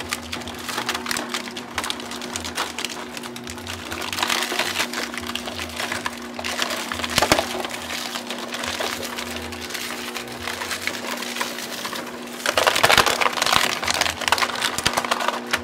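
Home-built plastic shredder's rotary blades chewing clear plastic clamshell containers and bottles: dense cracking and crunching of plastic over the steady hum of its electric motor and gearbox. The crunching swells a few seconds in, once sharply about seven seconds in, and loudest over the last few seconds.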